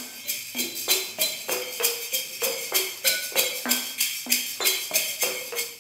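Homemade glass-bottle percussion instruments played in a steady rhythm, about three strokes a second. Each stroke gives a hollow pitched note that moves between a lower and a higher pitch, with a bright jangling rattle over it.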